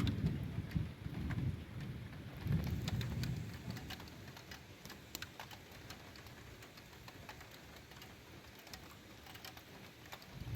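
Rain falling, with individual drops ticking sharply on a nearby surface, under a low rumble of thunder that swells twice in the first few seconds and then dies away.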